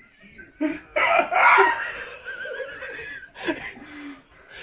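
A person's hiccups and laughter: a sharp hiccup about half a second in, a loud burst of laughter with a wavering high-pitched laugh after it, and another sudden hiccup about three and a half seconds in.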